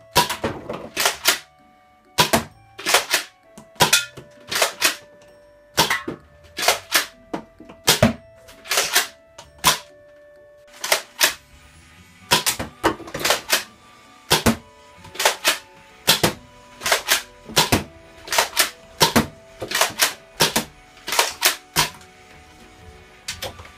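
Nerf Mega CycloneShock blaster repeatedly cocked and fired: sharp plastic clacks in quick clusters of two or three, about one to two a second, from the priming slide and the spring plunger releasing each Mega dart. Light background music plays underneath.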